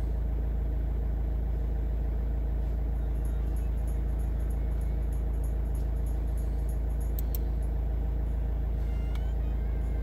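Steady low mechanical hum with faint, regular high ticking, about three ticks a second, through the middle.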